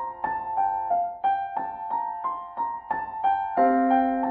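Background music: a piano playing a gentle broken-chord figure of about three notes a second, with a lower bass note coming in near the end.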